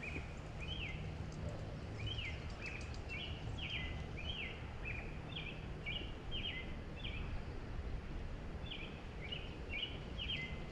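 A small bird chirping over and over in short, quick calls, about two a second with a brief pause near the end, over a steady low background rumble.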